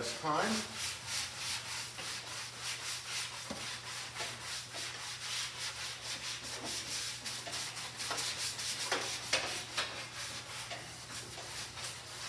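A long-board sander rubbing back and forth over a steel fender in quick, even strokes, roughly three a second. It is the finishing pass after hammer-and-dolly straightening, sanding the worked metal to reveal its high and low spots and the body line.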